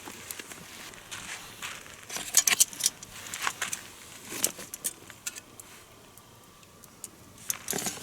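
Small objects being handled: irregular clinks, clicks and rustling, busiest about two and a half seconds in.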